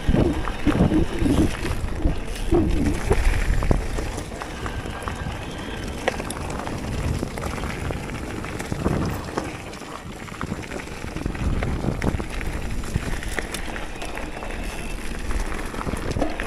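Focus Jam2 electric mountain bike riding a dirt trail: Schwalbe Eddy Current tyres rolling over the ground with many short rattles and knocks from the bike over bumps, under a low rumble of wind on the action-camera microphone. Louder and rougher in the first few seconds.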